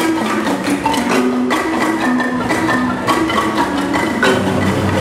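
Marimba band music: many quick struck notes on wooden bars over a low part, with a deeper bass line coming in near the end.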